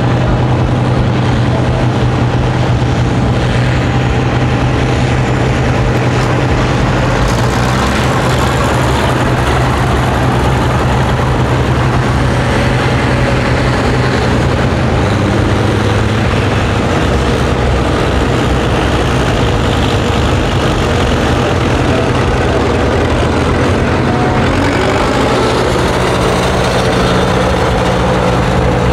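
Tractor engines running at a tractor pull: a steady low drone from tractors idling close by, mixed with the pulling tractor working under load down the track. Near the end another heavy engine note joins as a Caterpillar road grader moves in close.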